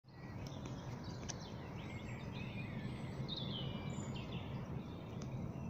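Several birds chirp and sing faintly in short calls. Under them runs a steady low rumble of background noise.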